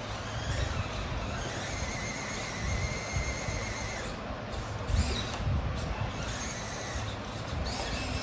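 Small electric motors of RC crawler trucks whining, the pitch rising and falling with the throttle, over a rough rumbling noise. There is a sharp knock about five seconds in.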